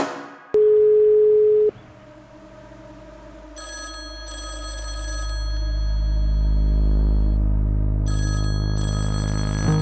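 A single steady beep tone lasting about a second, then a telephone ringing: two double rings a few seconds apart over a low drone that swells beneath them.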